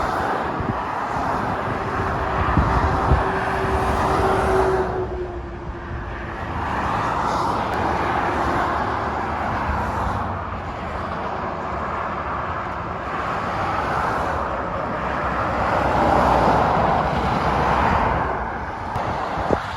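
Motorway traffic with lorries passing: a steady rush of tyre and engine noise that swells and fades as each vehicle goes by. A faint hum slides slightly lower over the first few seconds, and a short click comes near the end.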